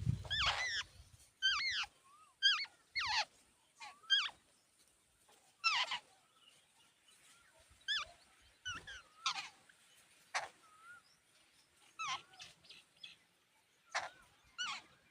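Jungle babblers calling: a string of short, squeaky, wavering calls, roughly one or two a second with gaps between. A low thump sounds right at the start.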